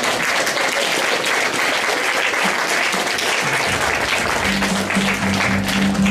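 Theatre audience applauding throughout. About four seconds in, music fades in underneath with a low, steady droning note.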